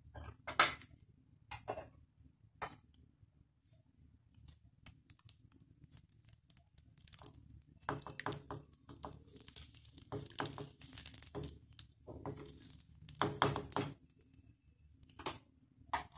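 Wooden spatula knocking and scraping in an iron kadhai as ghee melts into hot oil for a tadka: a few sharp taps at first, then several seconds of rough scraping and crackling.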